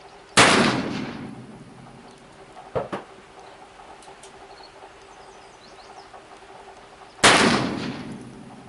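Two shots from a Pietta 1858 .44 black-powder percussion revolver, about seven seconds apart, each a sharp report with an echo dying away over about a second. About midway between them come two short clicks.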